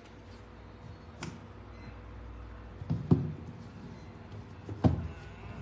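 Handling noise: a few short knocks and taps, the loudest about three seconds in and again near the end, over a faint steady hum.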